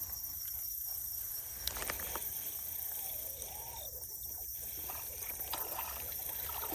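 Steady high-pitched drone of an insect chorus, crickets or similar, with a few faint clicks.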